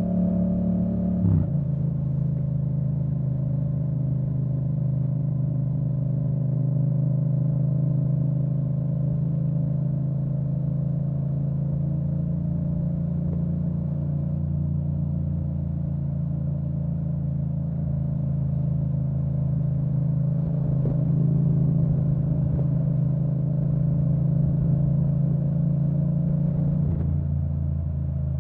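2017 Yamaha MT-07's parallel-twin engine through an Akrapovic full titanium exhaust with the dB-killer out, shifting up about a second in with a sudden drop in revs, then running at a steady cruise.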